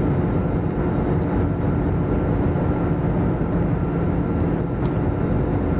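Cabin noise of an Airbus A320-family airliner in cruise, heard inside the cabin by the wing: a steady rush of air with an even engine drone and a few constant low hums, unchanging throughout.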